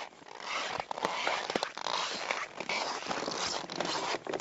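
Footsteps crunching and scraping in frozen snow, close and irregular, getting louder about half a second in.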